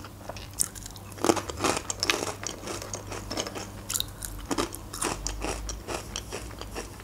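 Close-up crunching of dry bread croutons (sukhariki) being bitten and chewed: a run of sharp, irregular crunches.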